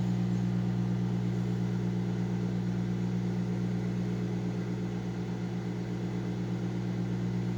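Microwave oven running with a steady electrical hum while it heats a bar of Ivory soap.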